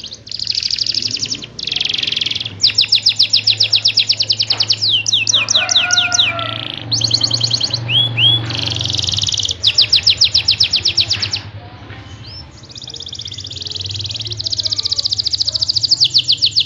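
Domestic canary singing a long song of rapid rolling trills, the 'cuit-cuit' rolls, broken by short pauses and a few single gliding notes.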